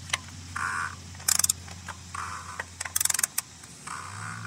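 Ratchet clicking in short quick runs on the backstrokes, twice after a brief first click, with softer rubbing sounds between, as the plastic oil filter housing cap of a 2010 Toyota Prius is turned down against its O-ring.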